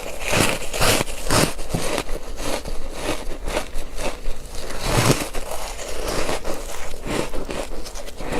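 Close-miked crunching and chewing of ice pieces coated in matcha powder: a rapid run of crunches about two a second, with a heavier bite about five seconds in.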